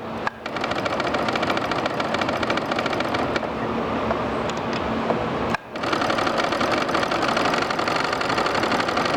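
Sewing machine running at speed, stitching with a fast even rhythm, in two runs with a brief stop a little past halfway.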